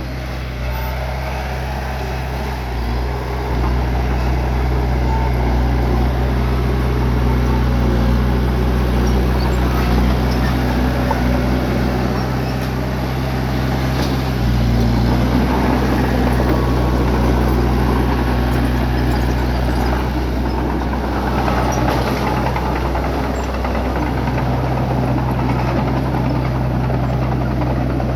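Bulldozer's diesel engine running steadily under load, with a dense clattering noise over it. The engine gets louder about three seconds in and changes pitch twice later on.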